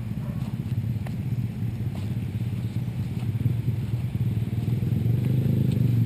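Motorcycle engine running steadily, its pitch rising near the end.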